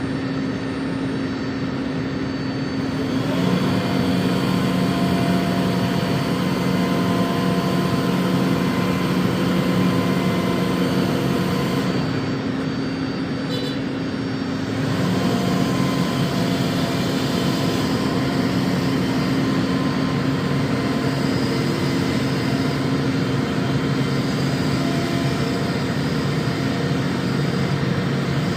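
Parked airliner's steady whine and rush, with a motor hum laid over it in two spells, from about three seconds in to about twelve seconds and again from about fifteen seconds, as the cargo door is driven open.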